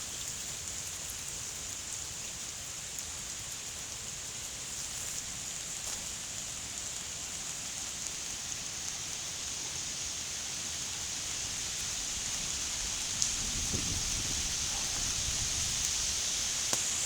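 Steady rushing hiss of the floodwater-swollen creek, growing slowly louder, with a low rumble of wind or handling on the microphone for a couple of seconds near the end and a couple of faint clicks.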